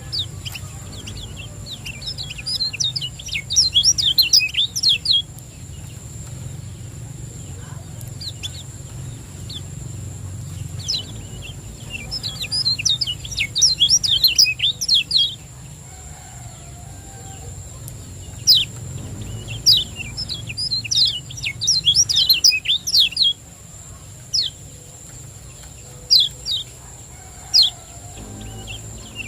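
Kecial kuning (white-eye) giving bursts of rapid, high chirping "ciak" calls, several quick runs of notes separated by short pauses, with a steady low hum underneath.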